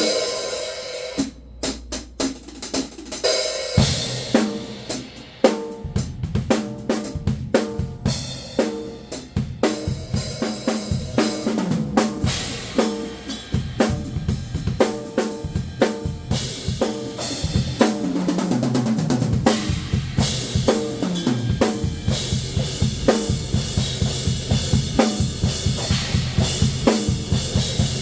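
Drum kit played to demonstrate Arborea Knight B20 bronze cymbals, with snare and bass drum under them. The cymbals have a dark, warm tone with a short, dry, tight sustain rather than a bright, lingering ring. A cymbal wash fades at the start, there are a few scattered hits, and then from about four seconds in a steady beat runs.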